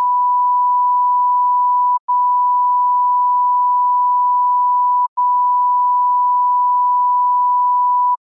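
A loud, single pure beep tone of the kind used as a censor bleep, held steady for several seconds with two brief breaks, then cutting off near the end.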